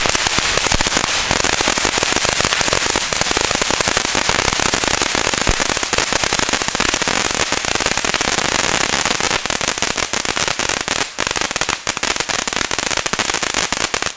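A Titanium Thunder ground fountain burning: a steady hissing spray of sparks under a dense, rapid crackle of titanium stars, which then stops abruptly.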